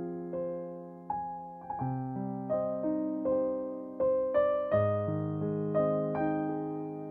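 Background piano music: slow notes and chords, each struck and left to ring out, with deeper bass notes coming in twice.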